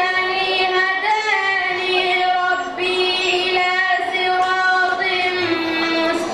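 A boy's voice reciting the Quran in melodic tajweed style through a microphone and PA, drawing out long held notes with ornamented turns between short pauses.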